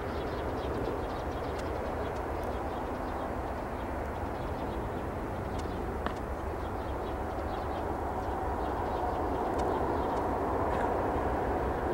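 Jet noise from an approaching Airbus A380-841's four Rolls-Royce Trent 900 engines on final approach: a steady low rumble that grows slightly louder, with a steady engine whine joining about two-thirds of the way through.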